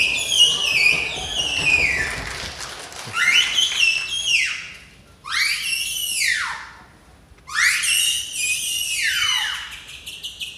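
Whistling in four long phrases, each sliding down in pitch in small steps and separated by short pauses.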